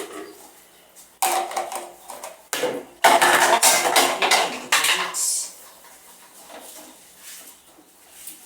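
Dishes and cutlery clattering and scraping as they are washed by hand, in several loud bursts about a second in and from about three to five seconds in, then lighter knocks.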